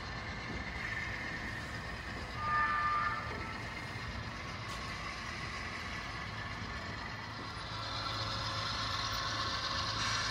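HO-scale model double-stack train running on the layout: a steady whirr of the locomotive motor and rolling wheels on the track. About two and a half seconds in a brief, louder tone sounds, and near the end the clatter of the container cars' wheels grows louder as they pass close by.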